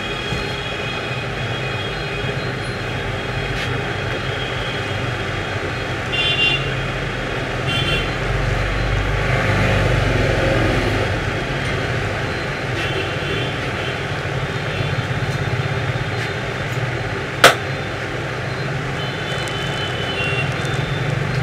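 Steady road traffic noise with several short vehicle horn toots, and a single sharp crack about seventeen seconds in.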